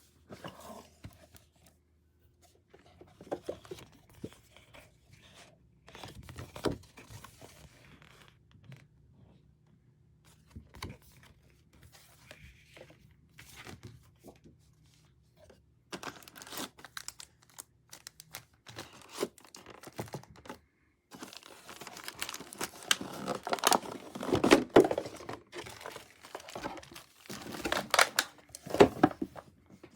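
Packaging crinkling and tearing as it is handled, with scattered clicks and knocks. It gets busier and louder over roughly the last nine seconds.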